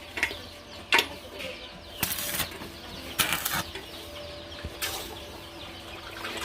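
Hand metalworking at a blacksmith's bench: short harsh strokes about a second apart, with one sharp metallic knock about a second in.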